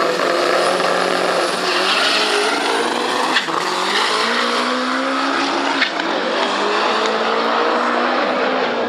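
Drag-racing Chevrolet Chevette's four-cylinder engine held at high revs on the start line, then launching about three and a half seconds in. After the launch the pitch climbs through the gear, breaks sharply at a gear shift about two and a half seconds later, and climbs again.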